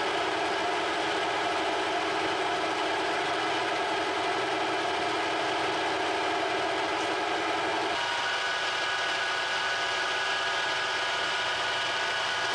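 Metal lathe running with its tool cutting a round bar, a steady whine of several tones; the tones change about two-thirds of the way through.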